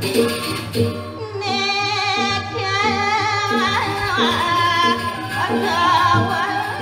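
Arja singer, a woman, singing a long ornamented line with wavering pitch, coming in about a second and a half in, over Balinese gamelan accompaniment that keeps a steady repeating beat.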